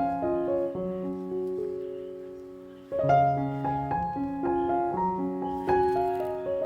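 Background piano music playing a gentle melody; one chord is left to fade for a couple of seconds before the melody starts again about three seconds in.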